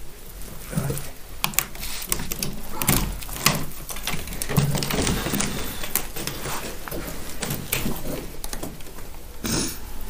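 Footsteps clattering and crunching over broken wooden floorboards and debris, with irregular knocks and scrapes of loose boards.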